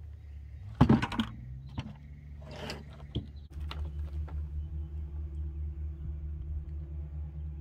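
Knocks and a short splashing rush as a gafftopsail catfish is put into a bucket. From about halfway a steady low hum with a slight pulse sets in.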